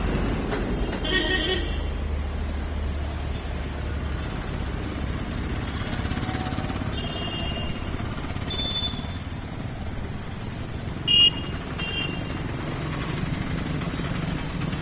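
City street traffic: a steady wash of vehicles running and passing, with a low engine rumble in the first few seconds. Several short, high-pitched horn beeps cut through, the loudest about eleven seconds in.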